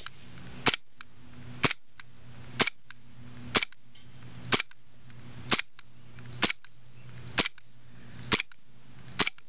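KWC Taurus PT99 CO2 airsoft pistol firing ten shots, evenly spaced about a second apart. Each shot is a sharp pop followed closely by a second click.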